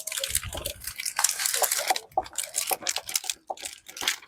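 Irregular clattering and rustling of small objects being handled, with many short clicks.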